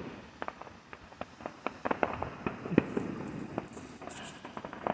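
Fireworks popping: an irregular string of small, sharp cracks, several a second.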